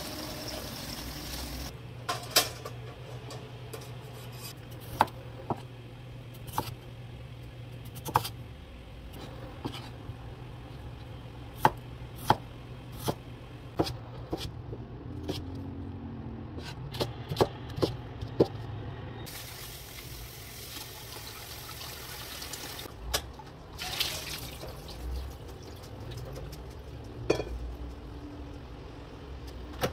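Kitchen knife slicing potatoes on a cutting board: a long series of irregular, sharp knocks. Tap water runs at the start and again for a few seconds partway through, over a steady low hum.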